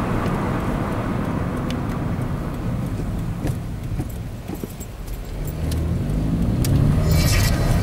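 Engine and road noise heard from inside the cabin of a 2006 Opel Astra Coupe Bertone Edition 2.0-litre as it rounds a bend. The engine eases off, then its note grows louder as the car accelerates about two-thirds of the way in. Light, irregular clicks and rattles come from inside the car.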